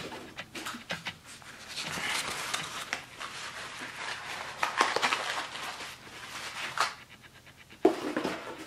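Packaging rustling and clicking as hands dig through a box of corrugated-cardboard-wrapped hookah parts and bags. There are irregular light clicks and a longer rustle in the middle.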